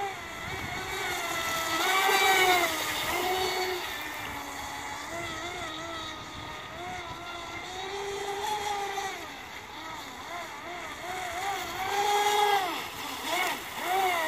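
Aquacraft Revolt 30 RC boat's brushless electric motor whining as the boat runs across the water. Its pitch rises and falls with the throttle, and it is loudest about two seconds in and again near the end.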